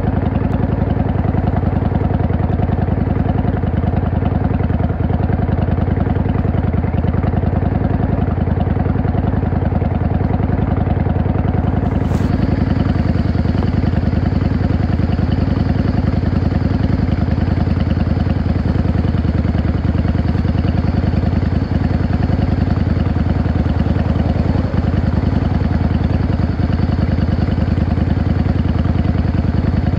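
Yamaha V-Star 650 (XVS650) motorcycle's air-cooled V-twin engine running at steady, unchanging revs.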